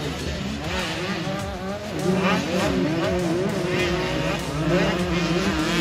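Several small two-stroke motocross bikes racing, engines revving up and down, their pitch rising and falling as they go around the track.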